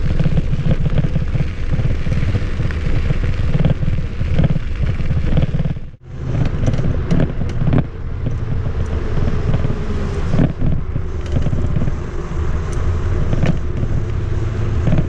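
Loud low rumble with crackling, of wind buffeting the microphone, broken by a sudden drop about six seconds in.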